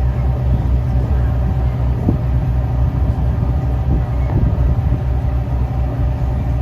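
A lake passenger cruise boat's engine running, a steady low drone with a rapid throb.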